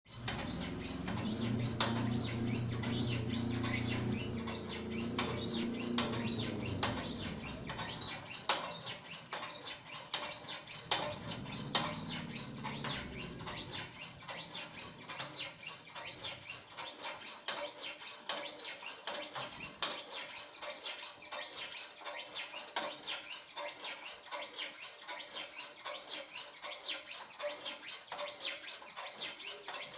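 Manual hydraulic hand stacker being pumped to raise its forks: a steady run of squeaky clicks, about two to three a second. A low engine-like hum runs under it for the first seven or eight seconds and comes back briefly around twelve seconds in.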